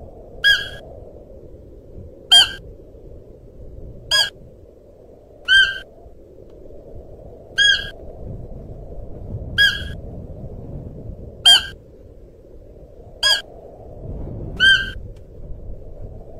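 Siberian musk deer calling: nine short, high-pitched calls, one about every two seconds, over a steady low background noise.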